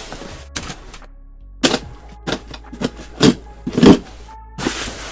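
Cardboard shipping box being cut and torn open: a string of short ripping and scraping noises, about eight of them, over quiet background music.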